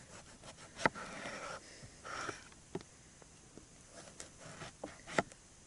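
Kitchen knife slicing an eggplant into rounds on a wooden cutting board: several sharp taps of the blade striking the board, the loudest a little under a second in.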